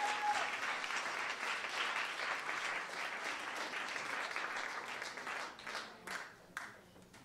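Audience applauding: dense clapping that thins out over the last couple of seconds to a few scattered claps.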